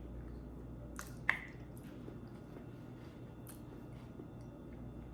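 Faint wet mouth sounds of someone eating, with a few soft squishy clicks; the sharpest comes just over a second in.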